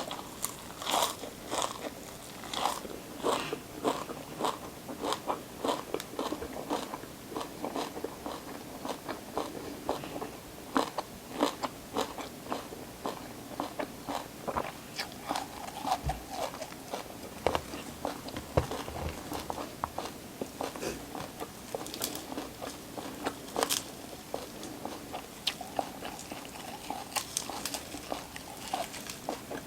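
Close-miked crunching and chewing of raw vegetables: a steady run of crisp bites and crunches, a few each second, with some louder bites now and then.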